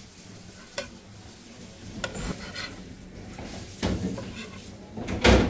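Metal spatula scraping and tapping against a plate as steamed dumplings are lifted and moved: a few scattered short scrapes and knocks, the loudest near the end.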